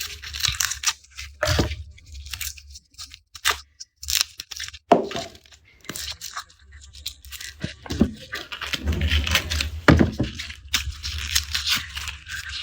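Papery garlic skins crackling and tearing as garlic is peeled, with sharp snaps and a few heavier knocks.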